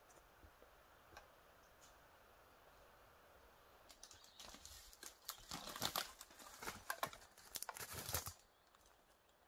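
Footsteps of a hiker in boots on a forest floor strewn with twigs and dry needles, crunching and crackling underfoot as he comes close and passes. The steps start about four seconds in and stop shortly before the end; before that there is only faint hiss with a few soft ticks.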